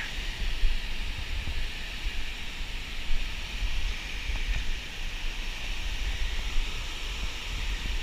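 Nippara River in flood after a typhoon: a steady hiss of fast, churning muddy water, with wind buffeting the microphone as an uneven low rumble.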